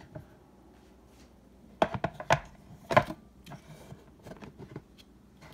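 Plastic seed-sprouter trays knocking and clacking against each other and the wooden tabletop as they are stacked back onto the base: a few sharp knocks about two to three seconds in, then lighter taps.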